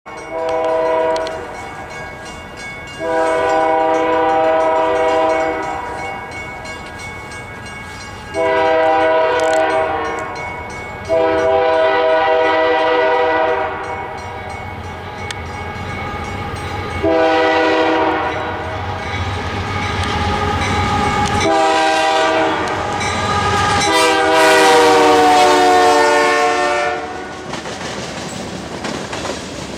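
Canadian Pacific GE ES44AC locomotive CP 9777 sounding its multi-note air horn in a series of long and short blasts as it approaches, the chord dropping in pitch as the locomotive passes near the end. Between blasts and after it, the diesel rumble and the clickety-clack of freight cars rolling by.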